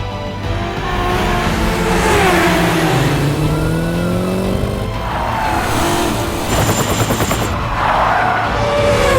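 Car engines revving and passing by, their pitch gliding down and then up, with a brief hissing burst about two-thirds of the way through.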